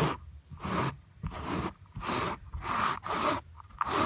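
Brisk back-and-forth rubbing strokes across woven car seat upholstery, about seven strokes at roughly two a second, each a short scratchy swish.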